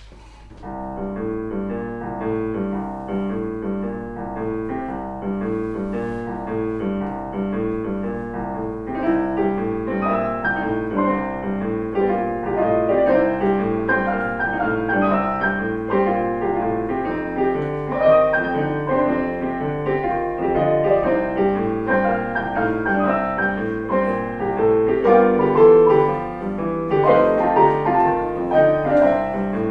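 Piano playing a piece, a continuous run of notes that starts about half a second in and grows a little louder and brighter from about nine seconds in.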